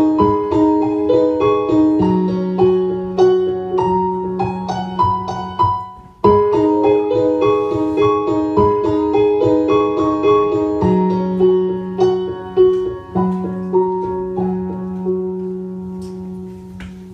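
Solo piano music: a melody of short, evenly paced notes over long held bass notes. It breaks off about six seconds in and starts again at once.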